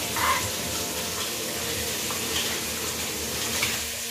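Kitchen tap running into a stainless steel sink as hands are rinsed under it, with pork ribs frying in oil in a pan on the stove behind.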